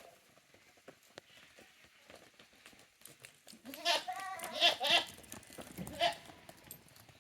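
Goat kids bleating: three or four short, quavering bleats in the second half, after a quiet start with a few faint clicks.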